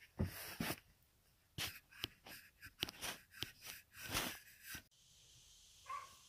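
A dog sniffing and snorting in short, irregular bursts. The sniffing stops abruptly near the end.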